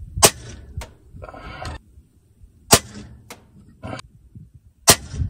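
Three shots from an unmoderated Kalibergun Cricket 2 Tactical .22 PCP air rifle, each a sharp crack, about two and a half seconds apart. Between shots come lighter clicks and a short rattle as the action is cycled for the next pellet.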